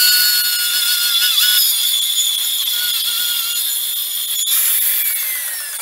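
Radial arm saw running and crosscutting a thick rough ash board, a steady loud whine of the blade in the wood; near the end the sound changes and its pitch falls as the saw winds down.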